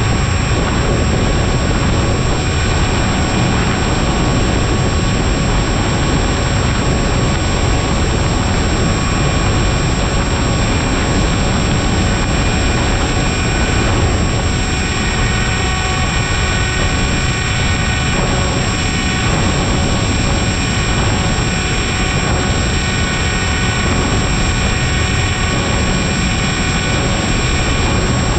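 E-flite Aeroscout electric RC plane in flight, heard from an onboard camera: loud wind rumble over the microphone under the steady high whine of its brushless motor and propeller, the pitch shifting slightly with throttle partway through.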